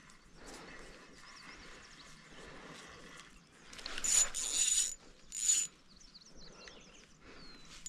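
Spinning reel's drag buzzing out in two bursts, about four seconds in and again a second later, as a hooked northern pike takes line on an ultra-light rod spooled with 3-pound line.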